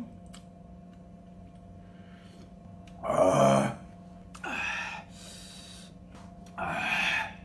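A man gasping and groaning from the burn of very spicy ramen: a loud breathy groan about three seconds in, then a shorter breath, and near the end a breathy exhale with air hissed in through the teeth.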